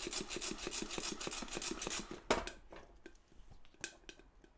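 Freshly roasted coffee beans rattling and sliding in a one-handled pot as it is shaken in quick strokes at the end of the roast, with the heat off. A little over two seconds in, the pot is set down with a single clunk, followed by a few faint clicks.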